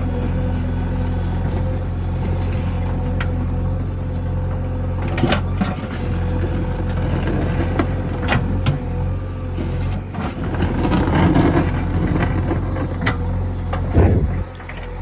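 JCB 3DX backhoe loader's diesel engine running steadily, with several sharp knocks and clanks over it.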